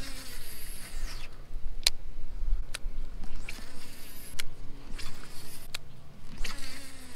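Baitcasting reel being cranked, its gears whirring, with sharp clicks about once a second.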